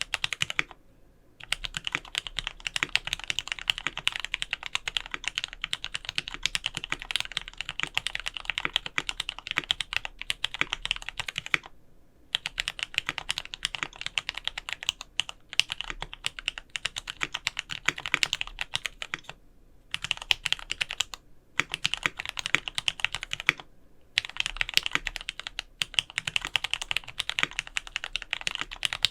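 Fast typing on a Monstargear XO K80 aluminium gasket-mount mechanical keyboard with lubed Gateron mini switches and PBT SA-profile keycaps. It is a dense run of keystrokes with a few short pauses, near the start and several times through the middle.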